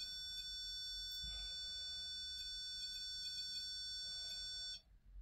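REM pod alarm sounding: a steady high electronic tone that cuts off abruptly near the end. The device sounds when something comes close to its antenna, which the investigators take as a spirit's presence.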